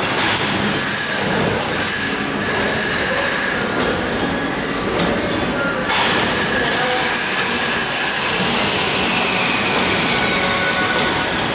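Six-line plastic bag making machine running: a steady, dense mechanical noise with faint high whining tones over it. It gets a little louder and brighter about six seconds in.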